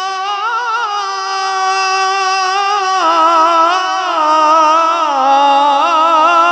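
Male qari reciting the Qur'an in melodic tajweed style into a microphone, holding one long, ornamented note with quick wavers in pitch. The pitch steps down twice, about three and five seconds in, and climbs back up near the end.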